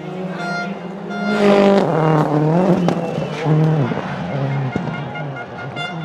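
Rally car engine revving hard as the car passes, the revs rising and falling with gear changes and lifts, loudest about a second and a half in, with a couple of sharp exhaust cracks.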